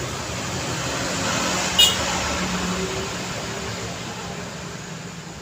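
Road traffic passing on a busy street, a vehicle swelling past towards the middle, with one very brief, sharp, high-pitched sound just under two seconds in.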